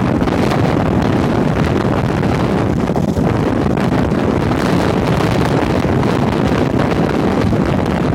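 Tornado winds blasting across the microphone: a loud, steady, deep rush of wind noise.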